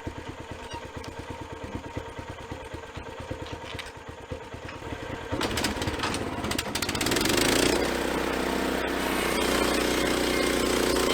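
Small gasoline engine of a portable band sawmill idling with a fast, even chug, then revving up about five seconds in and running loud and steady at high speed.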